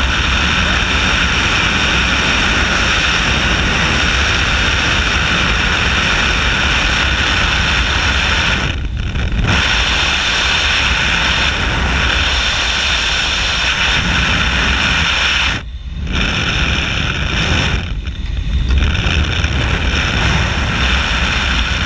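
Steady loud rush of air streaming past an aerobatic two-seat glider's canopy and the camera mounted on it in high-speed flight, with no engine. The rush thins briefly three times, about nine, sixteen and eighteen seconds in.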